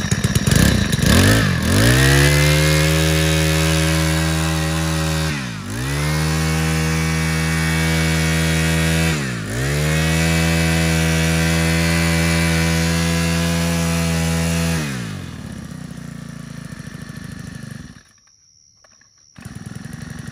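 Makita MEM427T four-stroke brush cutter engine pull-started, catching at once and revving up to a steady high speed. The revs dip and recover twice, then drop to idle about 15 seconds in, with a brief break near the end before the low idle resumes.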